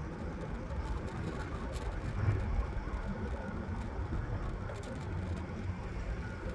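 Riding noise of an electric scooter rolling along an asphalt street: a steady low rumble and rush with no clear tone, swelling briefly a little over two seconds in.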